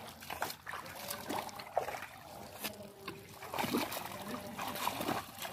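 Irregular splashing and sloshing of shallow muddy water as bare hands grope in the mud, with faint voices in the background.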